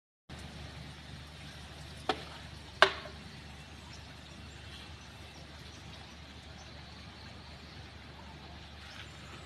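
Steady outdoor background noise with a low hum, broken by two sharp clicks about two and three seconds in, the second one louder.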